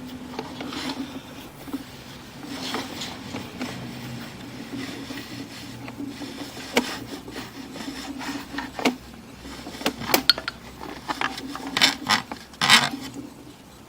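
Drain inspection camera gear being handled: its push cable rubbing and scraping, with scattered sharp clicks and knocks that come thicker and louder near the end, over a steady low hum.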